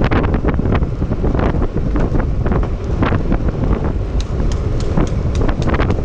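Wind buffeting the camera microphone during a fast downhill longboard run, over the steady rumble of the board's wheels on asphalt. A run of sharp ticks comes in the second half.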